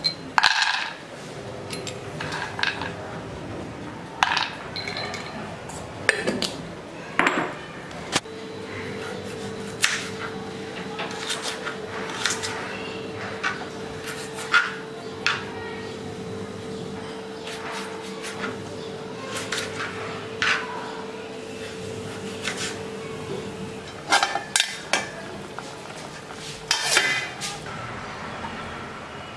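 Kitchen prep sounds: irregular sharp knocks of a knife on a plastic chopping board and a nonstick pan clanking. A steady hum starts about eight seconds in and stops around twenty-four seconds.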